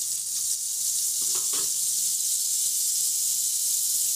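Butter melting and sizzling in a hot nonstick pot: a steady high hiss.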